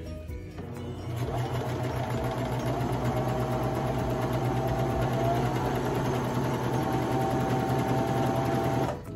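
Baby Lock Vibrant serger running steadily as it sews a seam, starting about a second in and stopping suddenly near the end.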